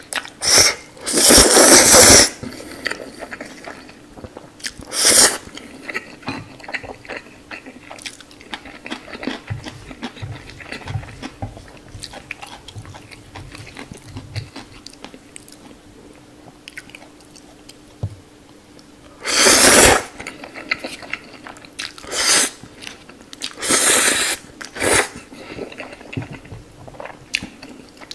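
Close-up eating sounds of instant noodles being slurped and chewed: several loud slurps, the longest about two seconds in and another around twenty seconds in, with wet chewing and smacking between.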